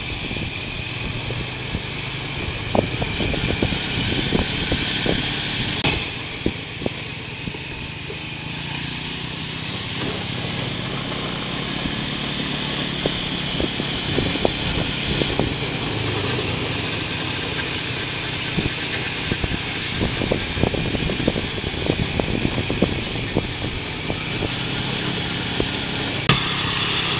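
Motorcycle engine running steadily on the move, heard from the bike itself, with road and wind noise and scattered short knocks.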